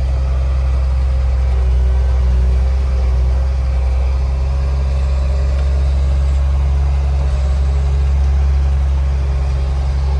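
Loader's engine running steadily with a deep, even drone.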